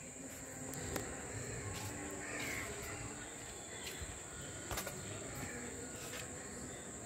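Quiet background: a steady high-pitched insect drone, like crickets, with a few faint ticks, two of them close together a little past the middle.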